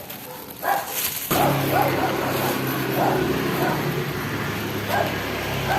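Dogs barking in short, repeated barks, and about a second in a motor engine starts running with a steady low hum underneath them.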